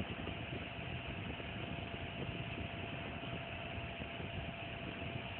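Steady hum and hiss, with a faint steady tone and scattered small clicks.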